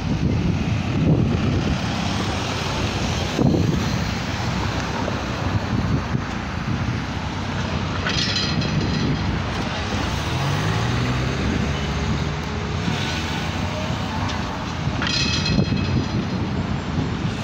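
City street traffic at an intersection: a van and cars driving past close by, engines running and tyres on the road, with a few louder passes about eight and fifteen seconds in.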